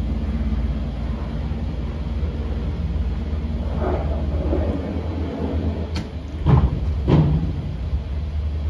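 Houseboat engine running with a low, steady, pulsing rumble as the boat pulls away from its mooring, its propeller churning the water. A sharp click about six seconds in, followed by two brief louder sounds.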